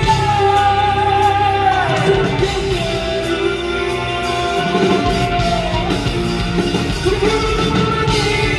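Live rock song with a male lead vocal holding long notes that slide down in pitch twice, over guitar, bass and drums.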